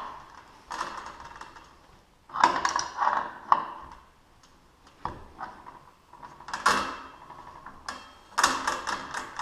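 Metal clinking and rattling in several short bursts as the loose drive chain and rail of a garage door opener are handled and adjusted.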